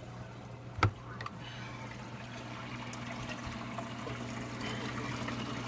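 Water trickling and splashing in an aquarium's under-tank filtration, over a steady low hum from the equipment, growing slowly louder. A single sharp knock comes about a second in.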